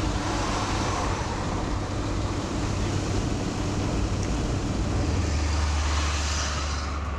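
Steady road and engine noise inside a moving van's cabin on the highway, with a low engine drone that grows stronger about five seconds in.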